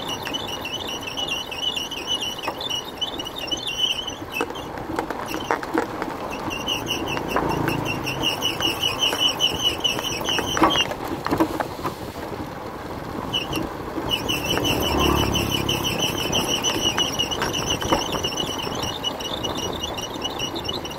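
A motorbike running on a rough dirt mountain track, heard from the pillion seat, with bumps and knocks from the road and the engine swelling a couple of times. A high, rapidly pulsing buzz comes and goes over it, breaking off twice for a few seconds.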